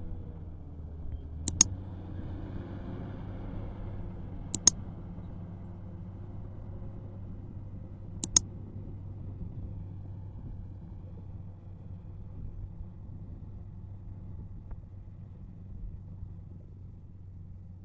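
Komatsu D65P bulldozer's diesel engine running steadily. Three sharp double clicks, roughly three to four seconds apart, stand out over it in the first half.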